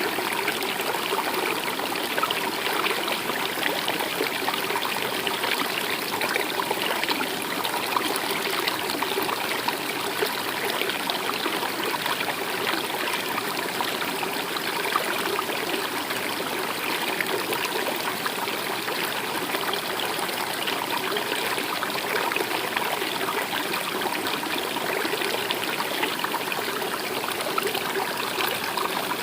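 A stream running steadily, its water trickling and babbling without letting up.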